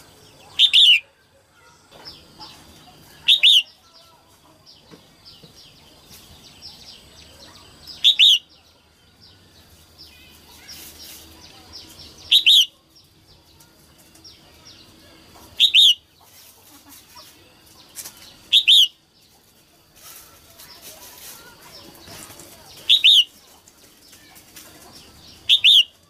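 Female red-whiskered bulbul calling to stir up males: eight short, loud call notes a few seconds apart, with fainter chirps between them.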